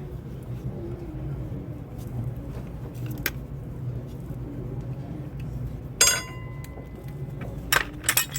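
Metal objects clinking during the brake work: a sharp metallic clink about six seconds in that rings on briefly, then two more clinks near the end, over a steady low hum.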